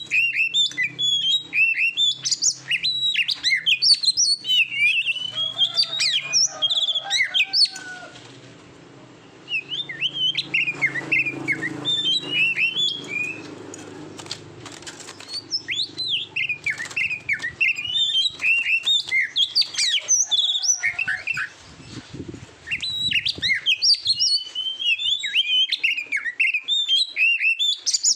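Oriental magpie-robin singing a fast, varied song of whistles and chirps, with two short lulls, about a third of the way in and again near two-thirds.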